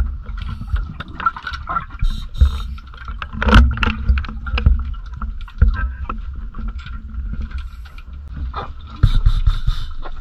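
Muffled underwater noise from a diver swimming through a flooded mine passage: low rumbling water movement with scattered clicks and knocks, swelling louder about three and a half seconds in and again near the end, over a faint steady high tone.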